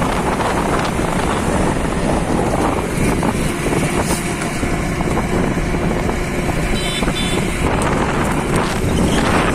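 Steady, loud rush of wind and engine noise from riding a motorcycle at speed.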